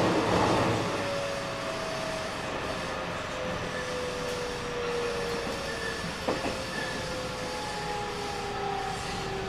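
JR West 207 series 1000-番台 electric train running, heard from inside the car: rail and running noise with the Toshiba VVVF inverter's whine sliding slowly down in pitch as the train slows. One short click about six seconds in.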